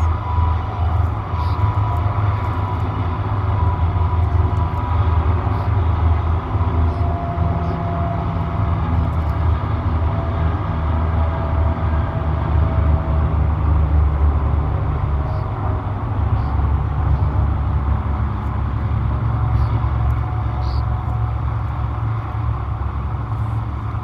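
Steady low engine-like rumble with faint humming tones above it, and a few faint short high ticks.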